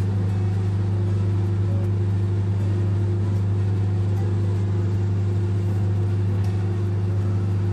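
LG microwave oven running in microwave mode: a steady low hum that does not change.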